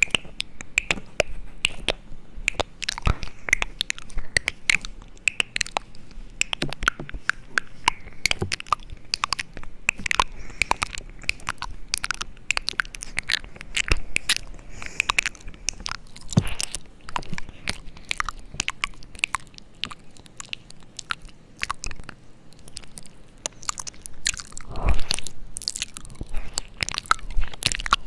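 Dense, irregular crisp crunches and clicks, with a louder cluster near the end.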